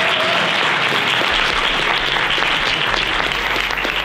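Audience applauding steadily: a dense, even patter of many hands clapping.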